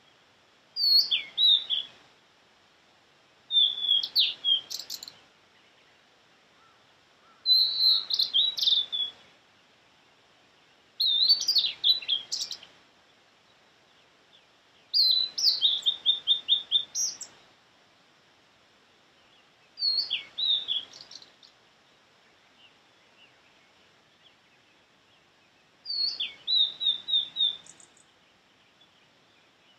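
Male blue-and-white flycatcher singing seven clear, high phrases several seconds apart. Each phrase is a quick run of sliding and repeated whistled notes.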